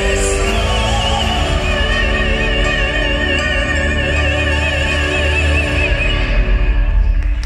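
Operatic soprano voice holding a long high final note with wide vibrato over sustained accompaniment, echoing in a church; the note fades near the end.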